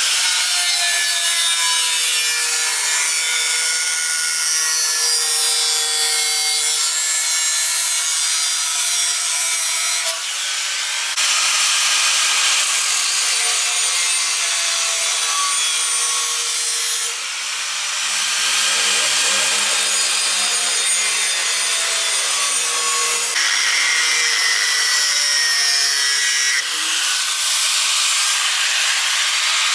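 Power tool, most likely an angle grinder, cutting and grinding iron bars, a steady loud grinding noise with a wavering pitch, broken by a few abrupt changes.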